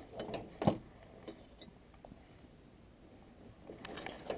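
A sharp metallic knock, then a few faint clicks, as small metal motorcycle parts are handled and set down on the bench.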